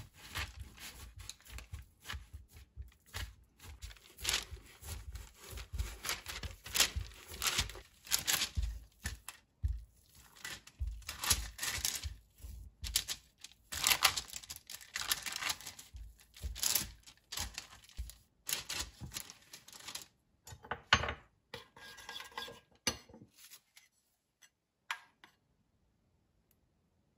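Hands patting and pressing crumbly butter shortcrust dough flat on baking parchment: irregular soft thumps with the paper crinkling and rustling. The sound stops a few seconds before the end.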